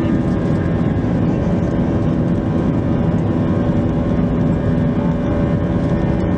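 IAE V2500 turbofan engines of an Airbus A320 running steadily, heard from inside the cabin: a loud, even rumble with several steady whining tones over it.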